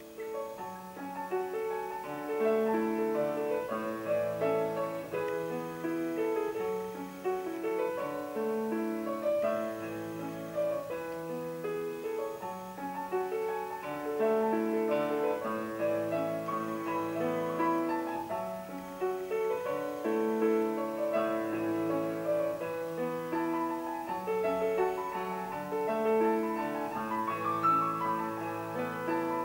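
Grand piano played solo: a continuous flow of notes with no pauses.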